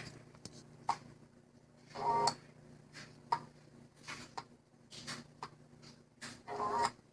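Dell Inspiron 3531 laptop giving irregular clicks and crackles over a steady low hum, with two short buzzy bursts about two seconds in and near the end: the sound fault the laptop is shown for.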